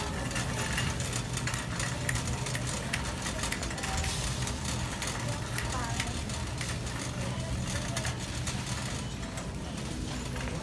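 Busy store background: a steady low hum with indistinct voices and scattered light clicks and taps as someone walks the aisles.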